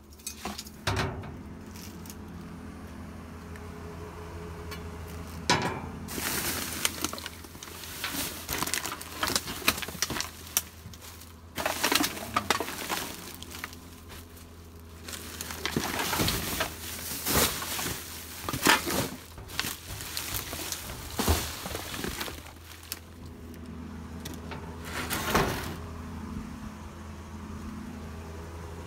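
Plastic garbage bags and rubbish being rummaged through and shoved about, crinkling and crackling in irregular bursts, over a steady low hum.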